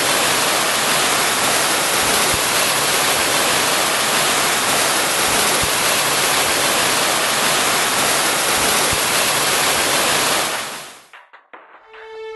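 Steady rush of water cascading down a stone-wall fountain, fading out near the end as music begins.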